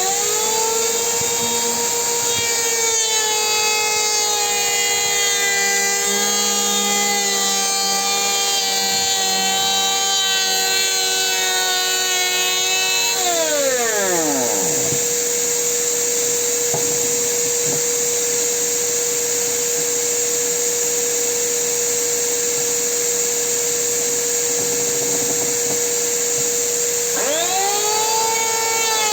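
Makita electric hand planer switched on, spinning up and running for about thirteen seconds, then winding down, and started again near the end. A steady high whine from another running machine continues underneath throughout.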